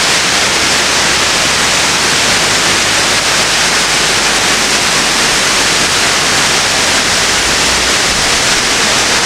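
Steady, loud rush of water from a 53-metre waterfall.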